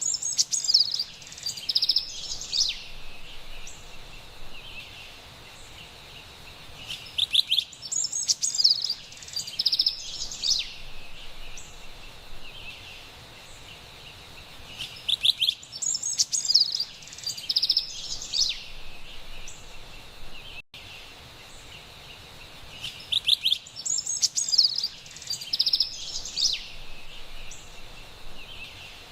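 Carolina wren singing: a bright, rapid song phrase of about three seconds, repeated four times roughly every eight seconds, over a soft steady background hiss.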